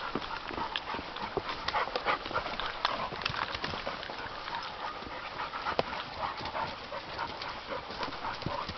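Footsteps crunching and clicking irregularly on leaf litter and wooden trail steps as people and hunting bird dogs walk, with a dog panting.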